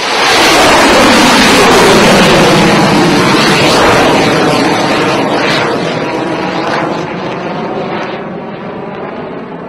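Rocket-launch sound effect: a loud rushing roar that cuts in suddenly, is loudest in the first two seconds, then slowly fades.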